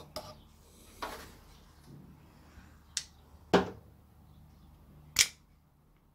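Handling noise from a steel handbrake cable being fed through a painted metal cable guide bracket: a few sharp clicks and knocks, the loudest about three and a half seconds in and another about five seconds in, with a short scraping rustle about a second in.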